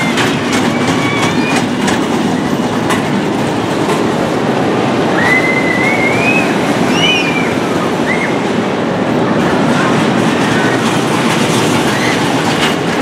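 Children's roller coaster train running along its steel track with a steady rumble and clatter. A few brief high squeals rise over it near the middle.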